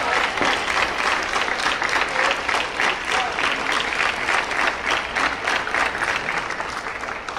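Spectators applauding a point in a table tennis match: many hands clapping in a dense, steady patter that thins and fades near the end.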